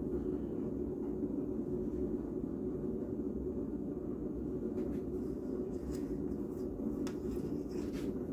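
A steady low background rumble, with a few faint pencil strokes scratching on drawing paper in the second half.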